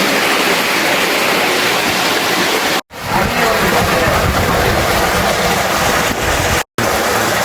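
Waterfall pouring into a pool: a steady, loud rush of falling water, cut off twice for a split second.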